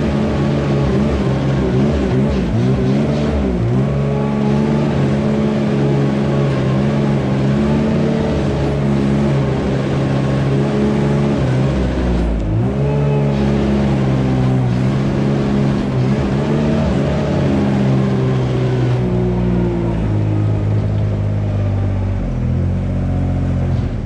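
Engine of a small self-propelled bedding spreader running under load as it drives along the stall alleys spreading bedding, its pitch dipping and recovering a few times.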